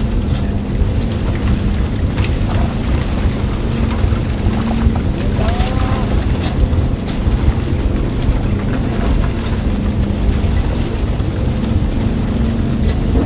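Fishing boat's engine running steadily at sea, a constant low drone under a hiss of wind and water, with a few light knocks from the deck.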